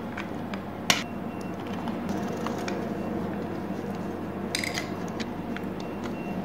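Small clicks and knocks of a Boss PH-3 guitar effects pedal being taken apart by hand with pliers. A sharp click comes about a second in, a quick run of clicks about four and a half seconds in, and light handling ticks fall between.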